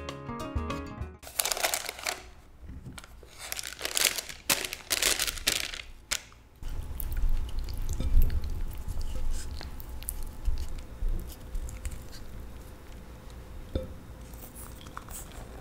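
Rubber spatula working softened butter in a glass bowl: soft scraping and small knocks over a low rumble, stirring it toward a mayonnaise-like texture. Before that, for about five seconds, there is loud crinkling, like a wrapper being handled. At the very start, the last notes of acoustic guitar music.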